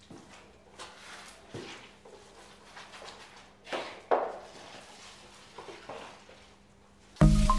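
Long-nap paint roller on an extension pole rolling primer onto a rough, pitted plaster wall: a run of soft swishing strokes, two stronger ones partway through. Music starts near the end.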